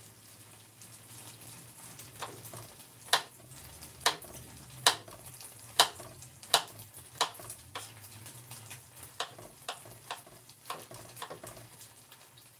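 A series of sharp knocks from kitchen food preparation at the counter, roughly one a second, loudest through the middle and softer toward the end, over a faint steady low hum.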